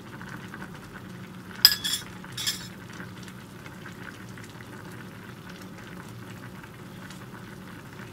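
Sea bream head soup simmering in a frying pan, a steady low bubbling. About one and a half seconds in, a metal ladle clinks sharply against a small plate two or three times as it is set down.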